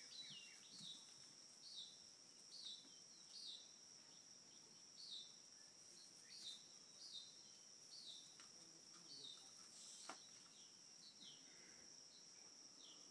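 Faint outdoor ambience: a small bird chirping over and over, short falling chirps about once a second, over a steady high-pitched insect drone.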